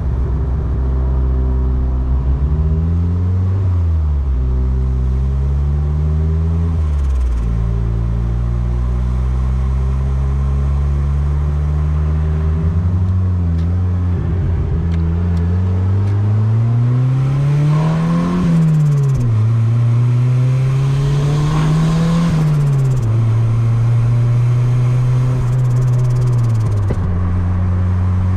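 Turbocharged Honda D16Y8 1.6-litre four-cylinder driving: the revs climb under boost and fall away about four times, with steady cruising between. A hiss rises as the revs peak and drop off, typical of turbo flutter (compressor surge) when the throttle is lifted.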